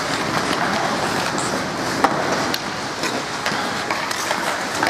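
Ice hockey skates scraping and carving across the ice, with scattered sharp clacks of sticks and puck. The loudest crack comes about two seconds in.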